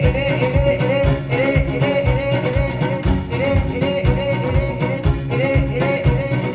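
Acoustic band playing a song on homemade instruments over a steady low drum beat, with a melody line and singing.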